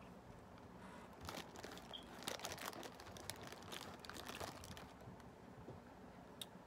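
Clear plastic bag crinkling and crackling as a hand rummages in it for fries, a busy run of crackles from about a second in that lasts about three seconds.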